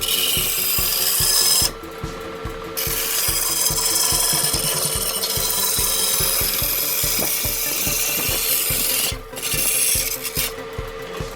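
Wood being turned on a lathe: a cutting tool scrapes against the spinning workpiece over a steady motor hum. The cutting noise stops about two seconds in and again near the end, when the tool comes off the wood.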